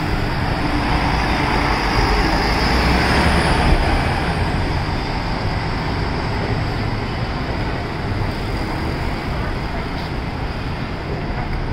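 Diesel express coach bus driving past close by and pulling away, its engine and tyre noise loudest a few seconds in and then easing off, over steady city street traffic.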